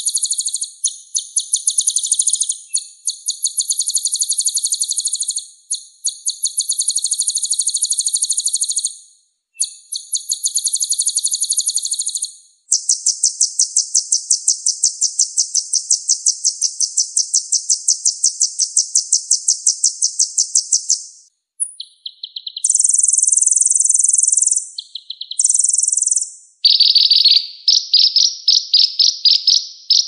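Sunbird song: very high, rapid, buzzy trills in runs of several seconds with short breaks, the longest run in the middle, then shorter bursts and a slightly lower trill near the end.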